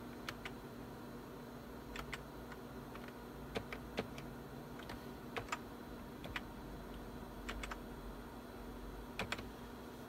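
Computer keyboard keys pressed one at a time, scattered clicks often in quick pairs, as menus are worked by keyboard because no mouse is installed. A steady low hum runs underneath.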